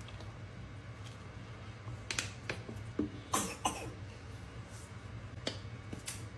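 Close-up eating sounds: chewing a toasted spaghetti sandwich, with a scattering of short wet mouth clicks and smacks, busiest two to four seconds in and twice more near the end, over a steady low hum.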